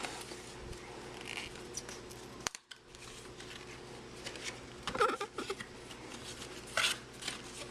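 Rustling and crinkling of a trading-card pack being handled and opened, with short louder crinkles about five and seven seconds in.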